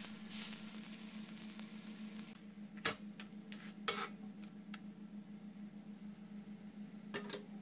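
Msemen frying in oil in a pan, a soft sizzle that fades after about two seconds, with a few sharp clicks of the spatula against the pan, about three and four seconds in and again near the end. A low steady hum lies underneath.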